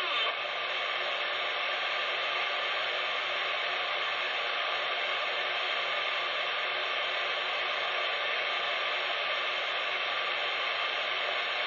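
CB radio receiver hissing steady static through its speaker, with no signal coming through.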